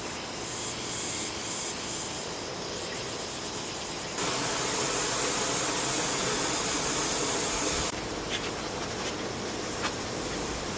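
Insects buzzing steadily, with a high hiss that grows much louder for about four seconds in the middle. A few light clicks come near the end.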